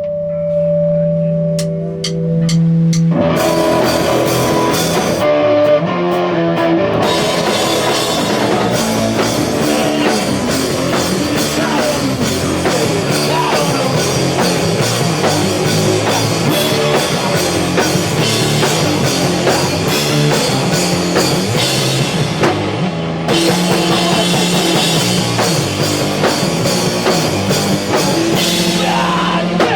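A rock band playing live. For about three seconds there is a held guitar chord with a few sharp clicks, then drums, bass and distorted guitars come in together at full volume and keep going.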